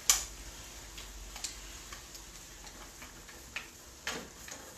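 Wooden spatula stirring mussels in a stainless steel pot: irregular light clicks and knocks of shells and spatula against the pot, the loudest right at the start.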